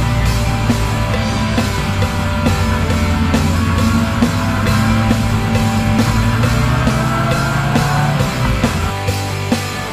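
Rock music with a steady drum beat, laid over the footage as a soundtrack.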